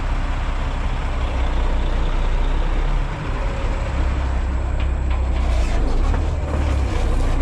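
Heavy diesel equipment engine running steadily with a deep rumble, dipping briefly about three seconds in.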